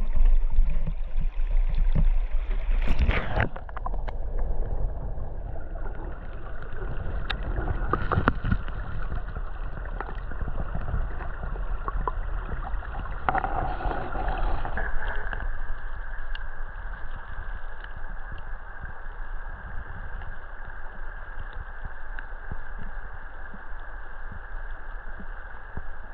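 Yamaha Tenere 700's parallel-twin engine running steadily on the move, with rushing noise, and a sudden loud disturbance about three seconds in.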